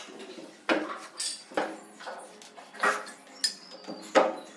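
Irregular sharp knocks and clinks of hard objects being handled, about half a dozen, the loudest one near the end.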